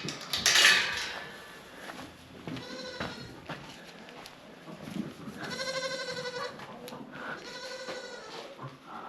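Goats bleating, three calls: a short one, a longer clearer one in the middle, and a third near the end. A brief loud rustling noise comes just before, right at the start.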